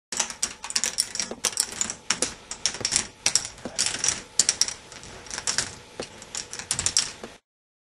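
K'nex ball machine running: plastic balls clattering through its plastic track and mechanisms in a dense, irregular run of clicks and rattles that cuts off suddenly near the end.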